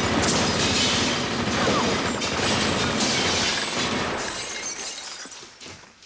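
Glass windows shattering and breaking, a loud dense crash that dies away about five seconds in.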